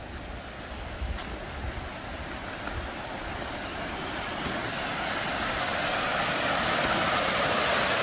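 Mountain valley stream splashing down small stone cascades, a steady rush of water that grows gradually louder as it comes closer.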